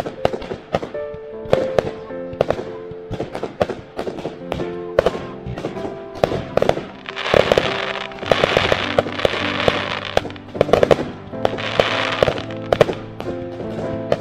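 Aerial fireworks bursting in a rapid run of sharp bangs, with two longer spells of crackling, one a little after seven seconds and one near twelve, over steady background music.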